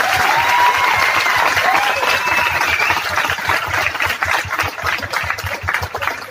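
Audience applauding: dense, steady clapping that eases slightly after the first few seconds.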